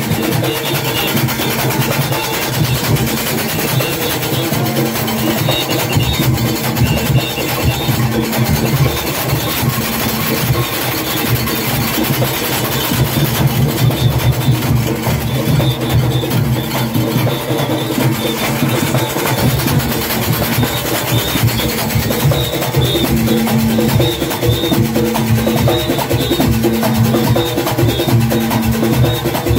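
Junkanoo band playing loudly: goatskin drums and cowbells keeping a dense, driving rhythm under brass horns, with a short horn phrase repeating about every two seconds near the end.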